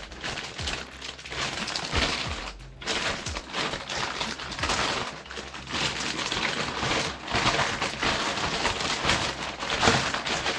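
Clear plastic packaging bag crinkling and rustling in an irregular crackle as hands handle it to take out a new helmet visor, stopping briefly about two and a half seconds in.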